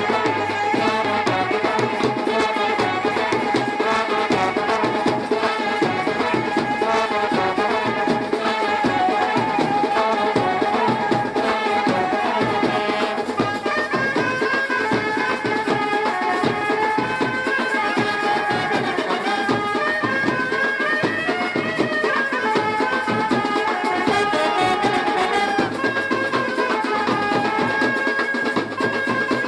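Music with fast, steady drumming under a held, wavering melody.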